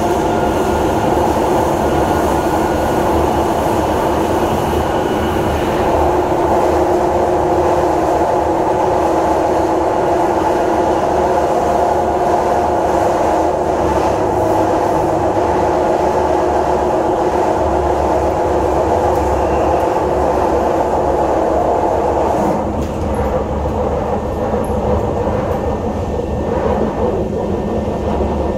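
Kawasaki Heavy Industries C151 metro train running at speed, heard from on board: a steady rumble of wheels on rail and running gear with some clickety-clack. About 22 seconds in, the sound drops a little and changes character.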